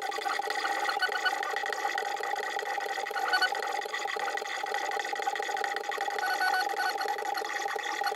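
Stepper motors of a pen plotter built on a Zonestar Z6F 3D printer, driving the pen carriage along its belt-driven X and Y axes. The motors give a steady whine, with short higher tones that come and go as the moves change.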